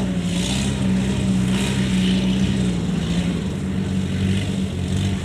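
Kubota DC70 combine harvester's diesel engine running steadily, with a constant hum and mechanical clatter; the pitch settles slightly lower past the middle.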